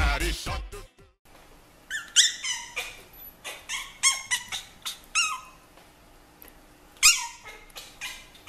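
Pomeranian puppies yapping: a quick run of short, high-pitched yips that drop in pitch, then a louder yip near the end.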